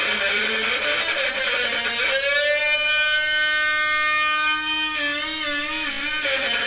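Electric guitar played through a Marshall 5210 solid-state amplifier: busy playing, then a long held note from about two seconds in that takes on a wavering vibrato about five seconds in, before the picking picks up again near the end.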